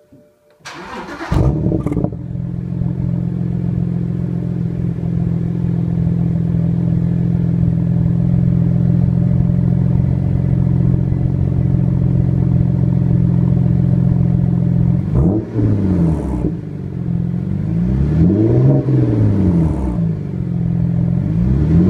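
BMW 128i 3.0-litre inline-six heard straight from its twin tailpipes with the muffler deleted: it starts up about a second in and idles steadily, then is revved, a quick blip around the middle and a longer rise and fall near the end.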